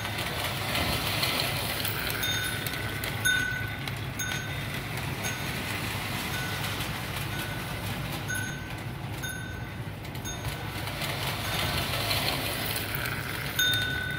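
Lionel toy train running on tinplate track, a steady motor and wheel rumble, while the small bell in its tender dings at irregular intervals, about once a second at times.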